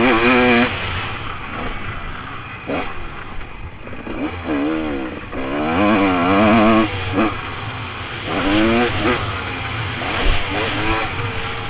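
Motocross bike engine revving hard and easing off again and again, its pitch rising and falling several times as the rider opens and closes the throttle on the track.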